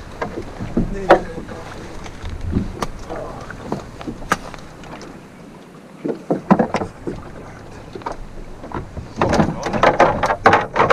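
Scattered knocks and clicks of gear being handled in a small open fishing boat, over a low rumble of wind and water; the clicks come thick and fast near the end.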